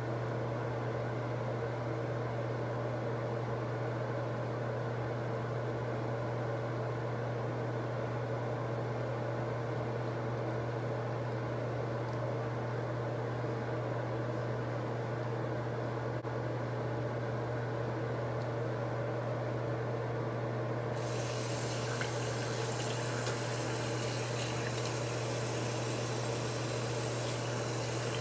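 A steady low hum throughout; about three-quarters of the way in, a tap is turned on and water runs into a sink with a steady hiss, as the face cleanser is about to be rinsed off.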